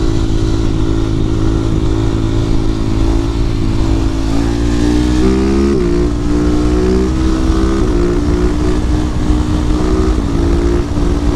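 Husqvarna 701 supermoto's single-cylinder engine running under way, heard from inside the rider's helmet with wind noise over it. Its pitch climbs about halfway through, then steps down sharply three times, a couple of seconds apart.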